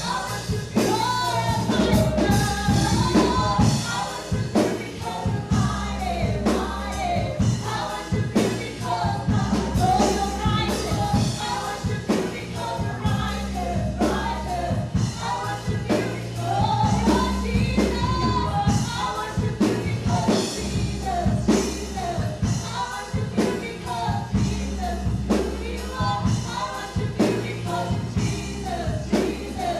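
Live gospel praise band playing with a group of singers, steady bass and drum beat under the vocals.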